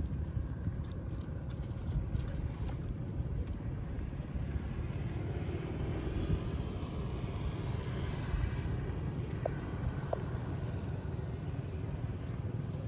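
Steady low outdoor rumble, with a few faint clicks in the first few seconds.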